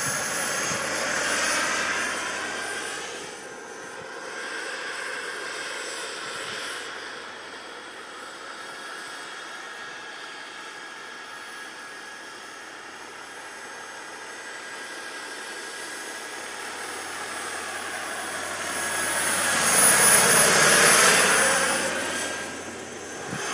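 Radio-controlled scale Lama model helicopter in flight, its motor and rotor giving a steady high whine. The sound fades as it moves off, then swells to its loudest as it makes a close pass about twenty seconds in, and falls away again.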